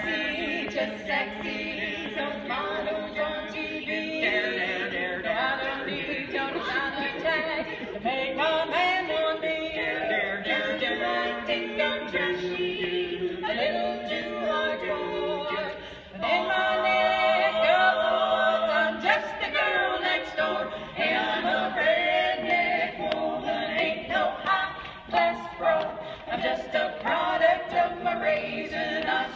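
Women's vocal quartet singing a cappella in close harmony, with a short dip about halfway through before the singing comes back louder.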